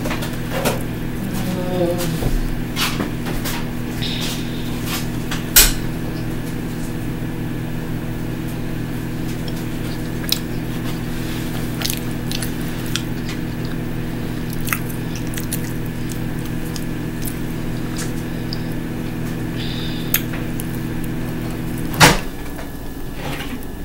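Microwave oven running with a steady low electrical hum, then shutting off with a loud click about 22 seconds in. Small scattered clicks sound over it.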